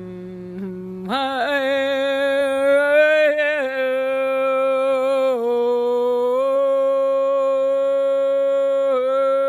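A woman's voice toning without words in sound-healing style: long, steady held notes. A lower note gives way to a higher one about a second in, and the pitch dips briefly and comes back a few times.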